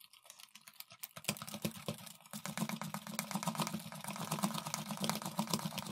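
Coiled spring hand whisk beating thick ground moong dal batter in a plastic bowl, a rapid, steady clicking as it churns. The batter is being whipped until it turns fluffy.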